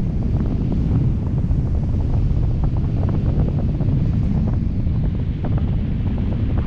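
Steady wind buffeting the microphone of a GoPro camera carried aloft on a kite line, a dense low rumble with faint irregular ticks.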